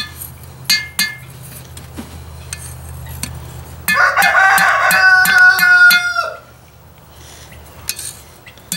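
A rooster crows once, loudly, for about two seconds midway, its call dropping at the end. Around it are hammer blows on a hot knife blank against an anvil, a couple near the start and more near the end.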